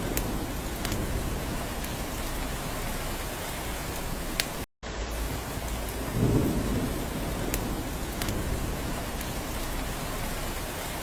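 Steady rain falling on a cabin roof, with a few sharp drip ticks and a brief low rumble about six seconds in. The sound cuts out completely for a split second a little before halfway.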